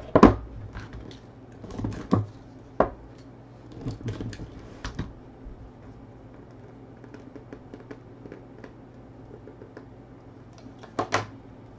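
Stiff cardboard boxes handled by hand: a card-stock box lifted out of its outer box and worked open, making a series of sharp clicks and knocks, loudest right at the start, around two seconds in and again near the end, with faint small ticks between.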